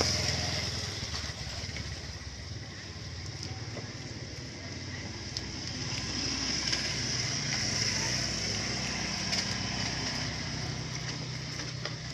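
A motor engine running steadily in the background, growing a little louder in the middle and easing off toward the end, with a steady high buzz above it.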